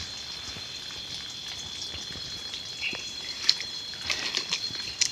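Small splashes and drips of water from someone washing with cold spring water for ablution. Behind them runs a steady high-pitched drone.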